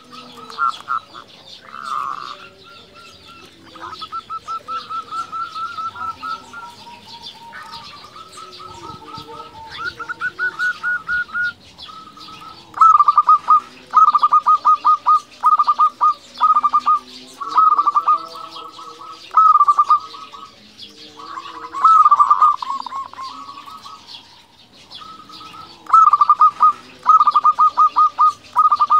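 Zebra dove (perkutut) song: phrases of rapid staccato coos running into fast rattling trills, repeated with short pauses. The phrases become louder from about halfway through.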